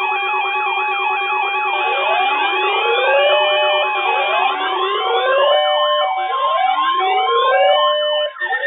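Several electronic siren and alert tones sounding together: steady tones, fast warbling wails and rising sweeps about once a second, with a brief drop and a change of pattern near the end.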